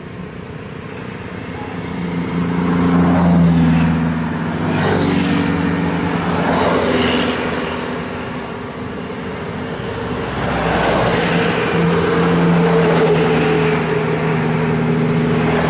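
Kubota DC-93 rice combine harvester's diesel engine and threshing machinery running steadily. It grows louder about two seconds in and swells twice as the machine works close by.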